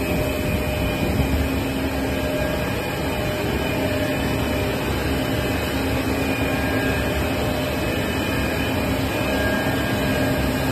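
Steady drone of a running five-extruder cast stretch film line as film runs off the T-die over the spinning chill roll, with a few faint steady tones over the hum of the machinery.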